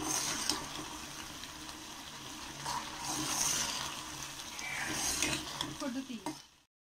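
A spatula stirring thick semiya kesari, vermicelli cooked down in ghee and sugar syrup, in a pan: wet, sticky scraping with a light sizzle, rising in three swells with the strokes. The sound cuts off suddenly shortly before the end.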